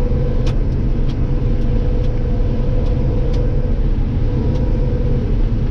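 Combine harvester running steadily while cutting soybeans, heard from inside the cab: a steady low rumble with a faint constant hum above it and a few faint ticks.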